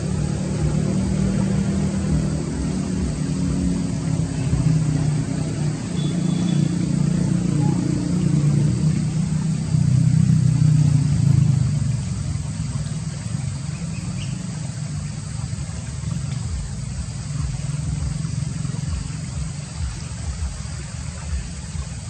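A motor vehicle's engine running close by, a low rumble that swells about ten seconds in and then eases off.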